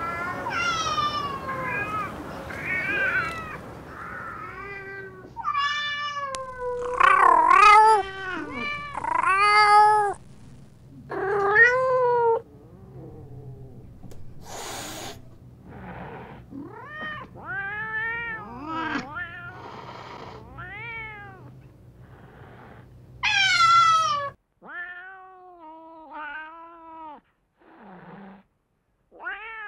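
Domestic cats meowing, one call after another from several different cats, a new meow every second or two. Each call rises and falls in pitch, and a few are long, drawn-out meows.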